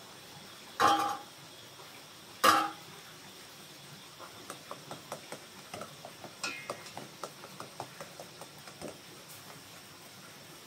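A metal pot lid clanks sharply twice, ringing briefly each time. Then a spoon stirs in a metal cooking pot, tapping and scraping against its sides in quick light clicks.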